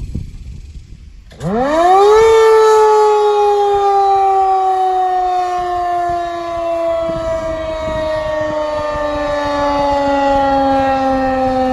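Federal Signal 2001-SRNB electromechanical siren growl test: about a second and a half in it starts with a low growl that climbs quickly in pitch. Within about a second the rise stops and the tone slides slowly down in pitch as the siren coasts down.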